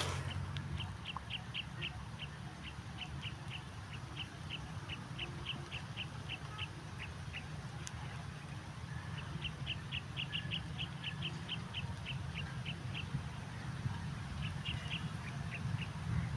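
A bird chirping in quick runs of short high notes, about three a second, pausing for a couple of seconds midway, over a low steady hum.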